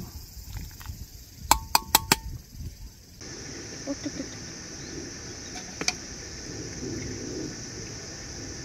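Four sharp clinks, each with a short ring, a second and a half to two seconds in. Then a steady high-pitched insect chorus sets in abruptly over a low background hum.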